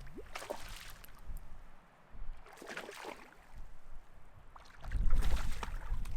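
Water splashing and sloshing in three short bursts, with wind rumbling on the microphone from about five seconds in.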